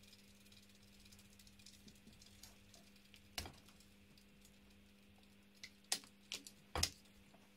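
A steady low electrical hum with sharp clicks over it: one about a third of the way in, then four in quick succession near the end.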